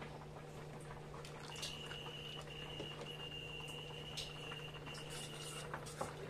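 Faint ticking and simmering of milk heating in a steel pot on a stove, over a steady low hum. A thin, high, steady whistle-like tone sounds from about a second and a half in until near the end, with short breaks.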